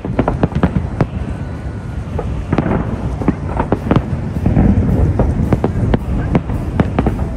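Fireworks display: a quick succession of sharp bangs and cracks over a continuous low rumble of booms.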